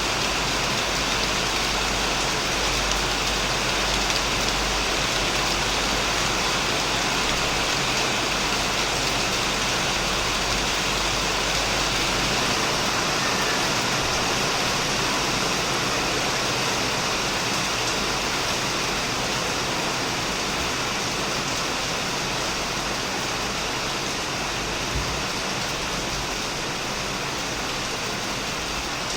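Heavy rain falling steadily on a shed roof and on plants: an even, unbroken hiss.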